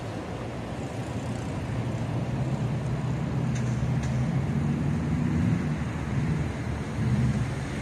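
Low rumble of passing traffic, swelling from about two seconds in, with a couple of faint clicks near the middle.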